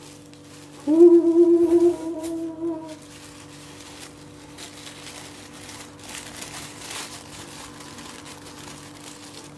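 A woman hums a long, steady 'mmm' note for about two seconds, starting about a second in. After that, soft rustling and crinkling of tissue paper and bubble wrap being unwrapped by hand.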